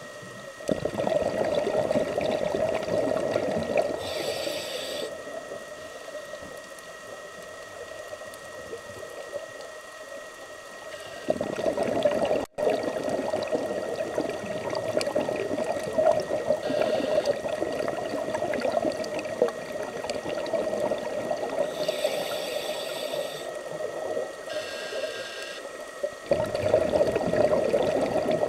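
Scuba regulator heard underwater: long bubbling gurgles of exhaled air, with a few short high hisses between them.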